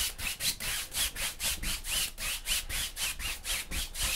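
Large bristle paintbrush scrubbing rapidly back and forth across a wet oil-painted canvas, about four or five scratchy strokes a second, blending two colours of paint together.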